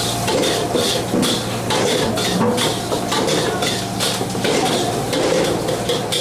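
Metal spatula clanking and scraping against a wok during stir-frying, about three strikes a second over a steady low hum.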